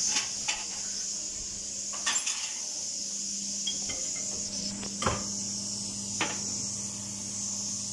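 A few scattered short knocks and clinks over a steady hiss and low hum, the sharpest knock about five seconds in.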